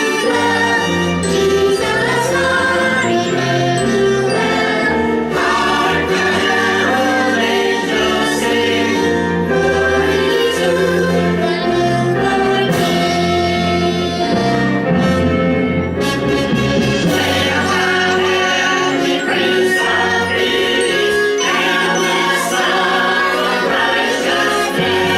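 A choir singing with instrumental accompaniment over a moving bass line, in the style of Christian or Christmas choral music.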